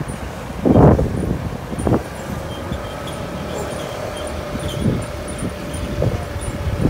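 Town-street traffic noise with car engines going by. A short loud noise comes about a second in, and a steady tone runs from about two seconds on.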